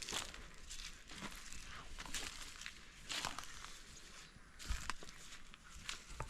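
Faint, irregular footsteps and rustling on dry ground and vegetation, with a dull thump about two thirds of the way through.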